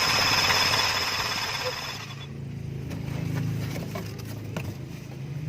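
A loud, steady hiss runs for about two seconds and then stops. Under it and after it, the Nissan Serena's engine idles with a low, steady hum.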